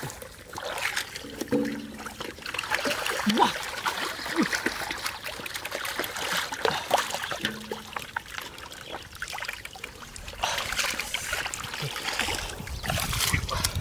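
Muddy water splashing and sloshing as a plastic mesh basket is scooped through a shallow channel, with water streaming and trickling out through the mesh. Heavier splashing of feet wading through the water near the end.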